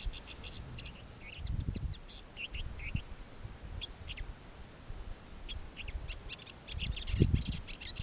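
Woodchat shrike singing: many short, high chirps and twitters in quick clusters, with a pause around the middle. Low rumbling bumps come about a second and a half in and, loudest, near the end.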